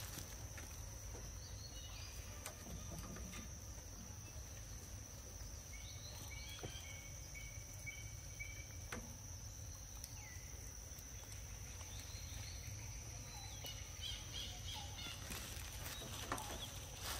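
Outdoor ambience: a steady high-pitched insect drone, with short bird chirps now and then and a few faint clicks.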